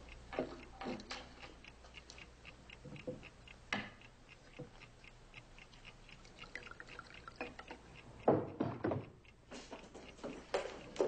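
Clock ticking with a steady, even beat, with a few louder knocks and rustles about eight to nine seconds in.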